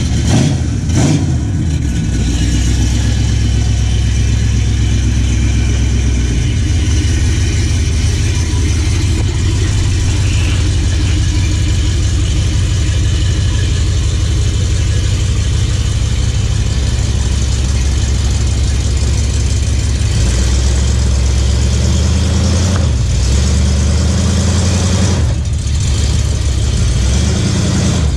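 1979 Ford F-250's engine revving briefly just after starting, then running steadily with a low, evenly pulsing rumble, its speed shifting slightly a few times.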